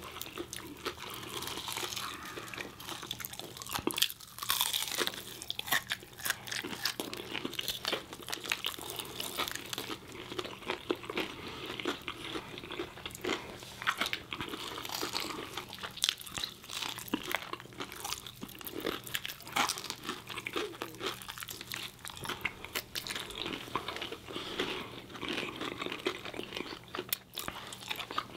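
Close-up crunching and chewing as two people bite into crispy fried chicken breading, with irregular crackly bites and wet chewing throughout. The loudest bites come about four seconds in.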